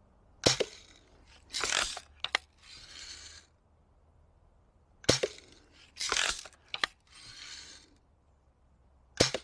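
Daisy Red Ryder lever-action BB gun fired three times about four seconds apart. Each shot is a sharp snap, followed by the scrape and clicks of the lever being worked to cock the spring for the next shot. One of the three shots is a misfire.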